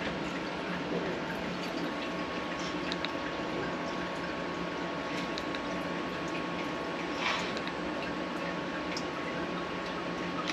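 Steady hum and hiss from the Sunnen SV-30 CNC vertical hone standing idle between passes, with honing oil trickling and dripping. A few light ticks come from a dial bore gauge worked in the cylinder.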